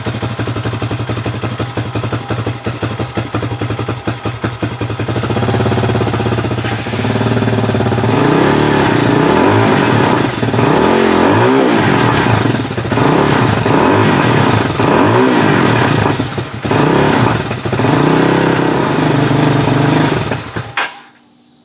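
RPS Hawk 250 motorcycle's single-cylinder engine running on its first start-up, blipped up and down with the throttle again and again to keep it going, then dying suddenly near the end. It won't hold an idle, which the owner puts down to the idle not being set.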